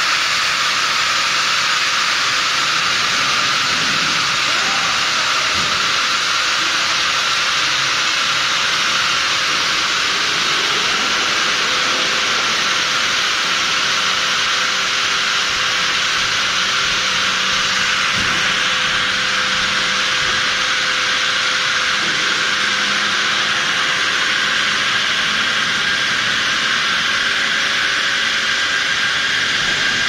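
Steady, loud hiss of industrial heat-treatment furnace equipment running. Partway through, a faint low motor hum joins it as the car-bottom furnace's hearth car is driven out.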